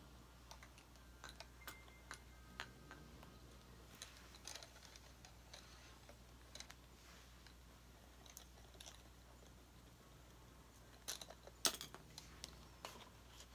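Faint, scattered small clicks and taps of resin doll parts, metal hemostats and wooden sticks being handled on carpet during restringing, with a cluster of sharper clicks near the end.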